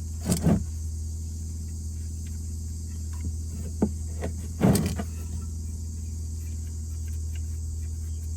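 A wrench turning an oil-pan drain bolt loose: a few short scraping clicks, the loudest about half a second in and again just before five seconds in, over a steady low hum.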